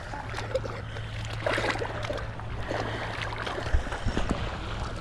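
Water sloshing and splashing in shallow muddy water, with a few sharper splashes about a second and a half in and again near the end, over a steady low hum.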